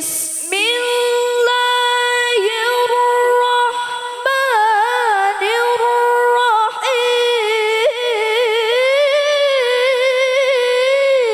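A girl's voice reciting the Qur'an in the melodic tilawah style, with long held notes and quick ornamented turns, amplified through a handheld microphone and PA.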